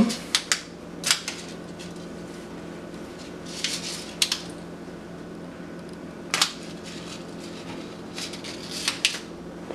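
Plastic film-developing reel clicking and rattling as a wet strip of 35 mm film is pulled off it and handled, with scattered sharp clicks and knocks over a steady hum.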